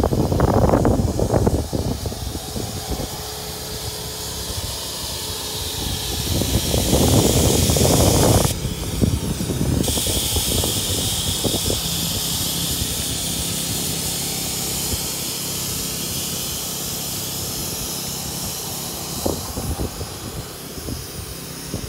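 Electric air pump inflating an inflatable tent, a steady hiss of rushing air over a faint motor hum. The hiss cuts out briefly about eight seconds in. Wind gusts buffet the microphone near the start.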